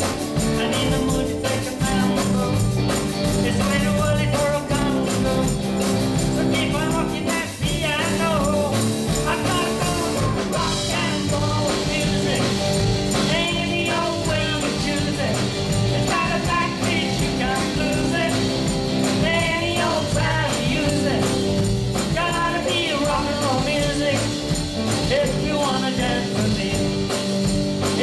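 Live rock-and-roll band playing: electric guitars, bass guitar and drum kit, with a woman singing lead.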